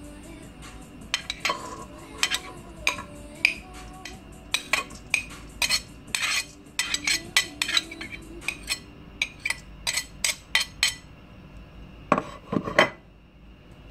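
Metal spoon scraping and tapping chopped shrimp and diced carrot off a ceramic plate into a stainless steel mixing bowl: a run of quick clinks, with a louder cluster of knocks against the bowl near the end.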